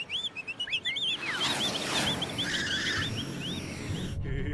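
Cartoon sound effects: birds chirping in quick, repeated calls, joined about a second in by a rushing whoosh that swells and then cuts off abruptly near the end, where music starts.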